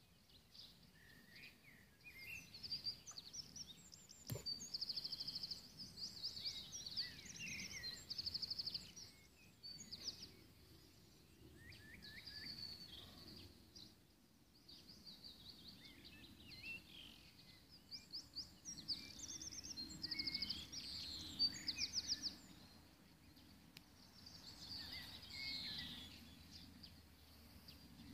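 Songbirds singing in the surrounding trees: a run of chirps and fast trills that come and go, over a low steady background rumble. One sharp click about four seconds in.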